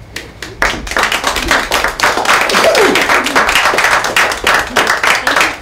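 A small audience applauding, the clapping starting about half a second in and going on as many separate hand claps.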